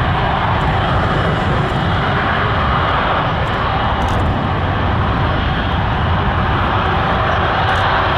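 Airliner engines running, a loud, steady noise that holds level throughout.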